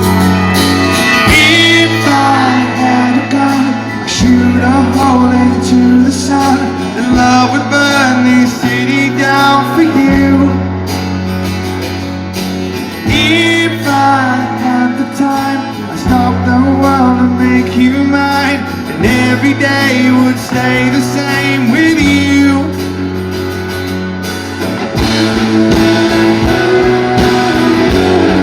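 A rock band playing live, heard from the front of the crowd: a steady bass line and guitars, with a male voice singing the melody over them.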